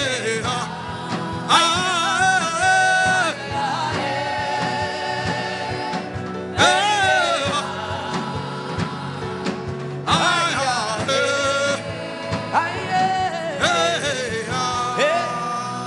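Gospel worship music: a voice singing long, wavering held notes over a steady sustained accompaniment.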